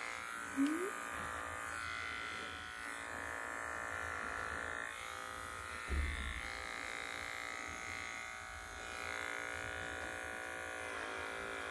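Cordless electric pet clipper running with a steady hum as it trims a three-week-old poodle puppy's face. A short rising squeak comes about half a second in, and a soft bump comes around six seconds.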